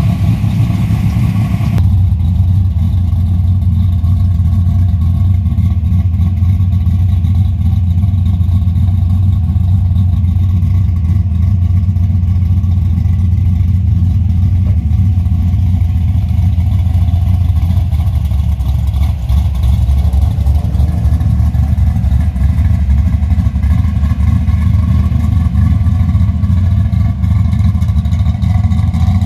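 Deep, steady exhaust rumble of classic muscle cars idling and pulling slowly away from the show, among them an orange first-generation Chevrolet Camaro and an orange Plymouth Barracuda.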